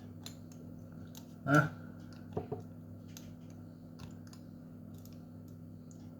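Small clicks and taps of a glass tincture dropper against its bottle as it is squeezed and filled, with one louder knock about one and a half seconds in. A steady low hum runs underneath.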